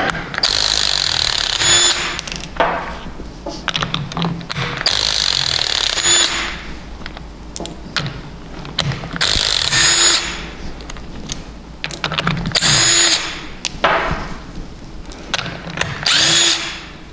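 Impact wrench hammering ring gear bolts loose from a differential carrier, in five short bursts of a second or so each with pauses between, one bolt per burst.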